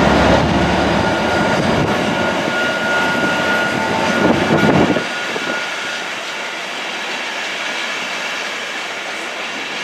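LNER InterCity 225 train's Mark 4 coaches rolling past on the rails, a loud, steady wheel-on-rail rumble with a faint whine over it. About five seconds in the deep rumble drops away sharply, leaving a quieter, even rolling of wheels.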